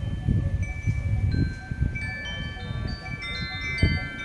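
Wind chimes ringing, many clear tones struck one after another and ringing on over each other, with a low rumbling noise underneath.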